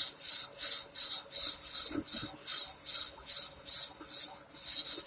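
A fret leveler faced with fine sandpaper rubbed back and forth over a guitar's metal frets, about two to three strokes a second with a brief pause near the end: the high frets are being ground down to the level of a low one.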